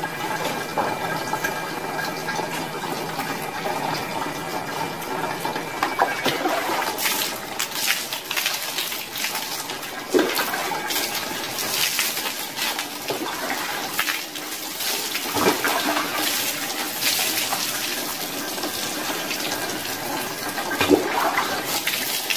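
Water splashing as a person bathes, pouring water over the head and body, with several sharper splashes along the way.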